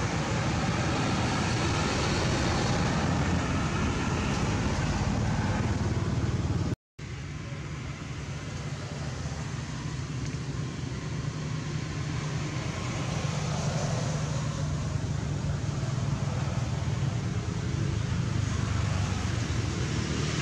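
Steady outdoor background noise with a heavy low rumble, broken by a brief dropout about seven seconds in.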